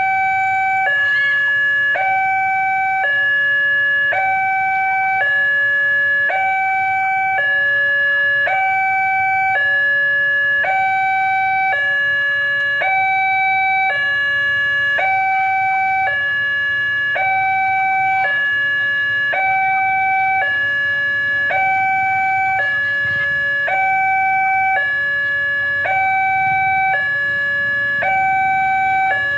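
Railway level-crossing warning alarm sounding from its loudspeaker horn: an electronic two-tone signal that steps evenly between a higher and a lower tone about once a second, repeating without pause. It signals that the barrier is down and a train is approaching.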